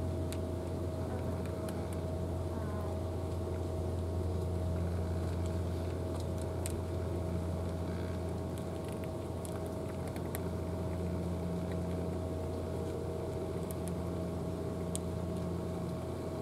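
Steady low mechanical drone with a constant hum, like an engine or motor running, over faint scattered crisp clicks of a cat crunching dry kibble.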